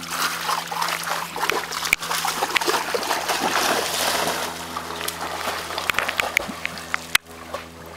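A Nova Scotia Duck Tolling Retriever splashes through shallow lake water for the first four seconds or so, then the sound turns to fainter sloshing and drips as it swims off. A sharp click comes near the end.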